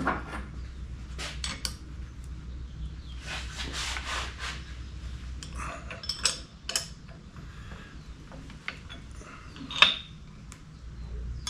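Metal clinks, knocks and scraping from hand work on a Di-Acro No. 2 bender's roller, clamp block and half-inch steel bar stock, as the roller is set up and tightened. There is a longer scrape about three to four seconds in, and the sharpest clink comes near the end.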